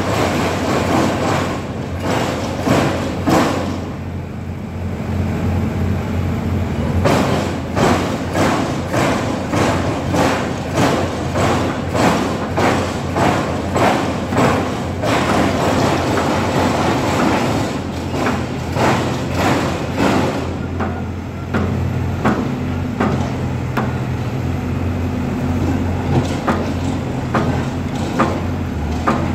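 Diesel engines of heavy tracked construction machinery running steadily, with sharp knocks at about two a second through much of the time. About two-thirds of the way through the knocking thins out and a steadier engine drone remains.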